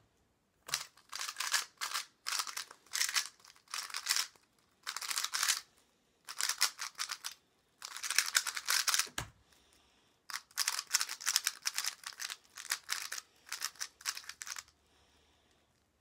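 A GuoGuan Yuexiao Pro 3x3 speed cube being turned fast: quick bursts of rapid plastic turning clicks separated by short pauses, stopping about fifteen seconds in. There is one dull knock about nine seconds in.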